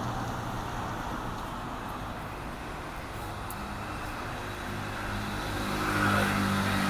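Steady background rumble, with a low motor hum that grows louder in the second half.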